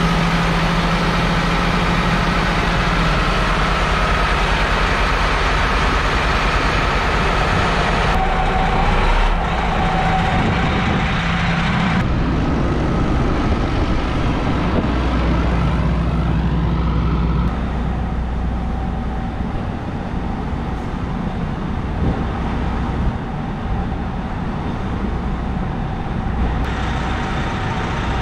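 A steady idling engine hum that drops somewhat in level about two-thirds of the way through.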